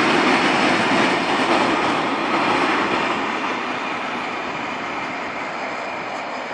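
Freight train of open goods wagons rolling past: steady wheel-on-rail noise that fades gradually.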